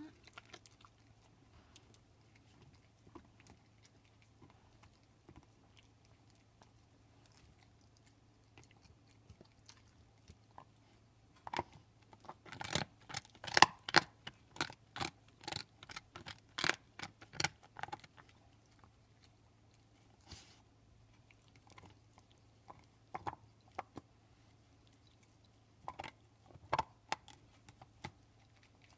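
A pit bull chewing a large beef bone: sharp crunches and cracks of teeth on bone. The crunches come thick and fast for several seconds about midway, then scattered near the end, with only faint gnawing before that.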